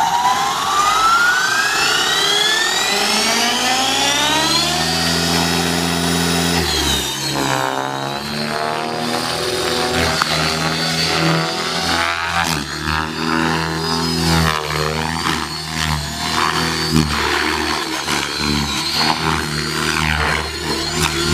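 Electric motor and rotor of an Align T-Rex 600E RC helicopter. The whine climbs steadily in pitch over the first six seconds or so as the rotor spools up, then runs at speed with its pitch and loudness shifting.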